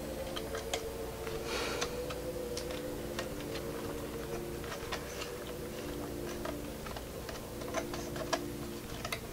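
Light, irregular clicks and ticks of fingers handling a thin fan cable and the plastic frame of a radiator fan, tucking the cable in along the frame, over a steady hum.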